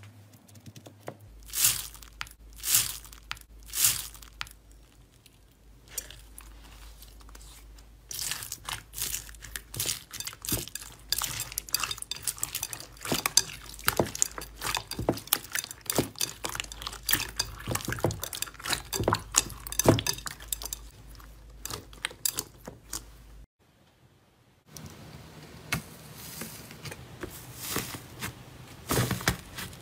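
Slime full of foam beads squeezed and kneaded by hand, giving a dense run of crackles and pops. After a short break, a slime with a dried, cracking crust is pressed with the fingers and crackles.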